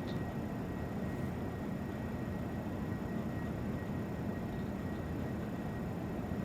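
Steady low background noise with a faint thin steady high tone, unchanging throughout.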